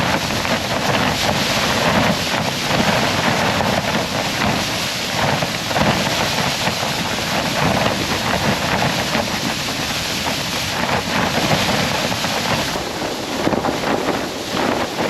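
Strong blizzard wind gusting in a loud, steady roar with flickering surges, buffeting the microphone.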